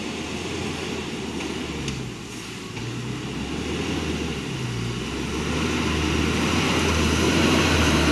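A heavily loaded light truck's engine running under load as it drives through mud, its low rumble growing steadily louder as the truck comes closer.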